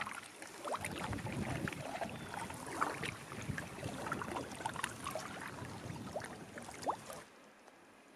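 Choppy lake water splashing and slapping against a canoe's hull as it is paddled along, full of small irregular splashes. Near the end it drops abruptly to a faint, even lapping.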